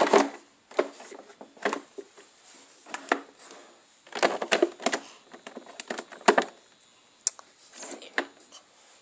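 Hard plastic toy parts clicking and knocking irregularly as a doll is handled in and around a plastic toy car, close to the microphone.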